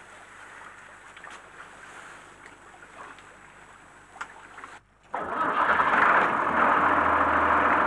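A fishing boat's engine running steadily under way, loud, coming in abruptly about five seconds in. Before that there are only a few faint clicks and knocks of handling on deck.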